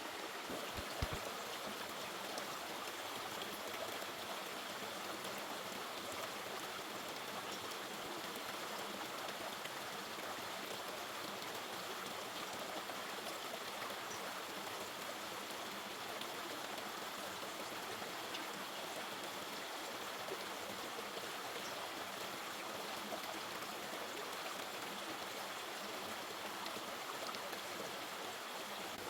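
River water flowing steadily, a continuous even rush. A single short knock sounds about a second in.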